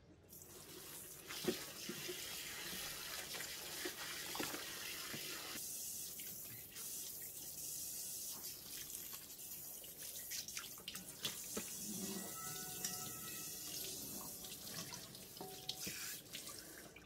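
Kitchen tap running, water splashing onto a cast iron wok and into the sink as the wok is rinsed, with a few light knocks. The water comes on just after the start and stops near the end.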